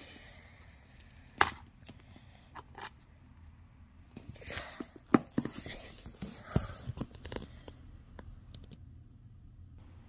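Plastic LEGO pieces handled and set down on a wooden floor: scattered sharp clicks and knocks with scraping and rustling, thickest from about four to seven and a half seconds in.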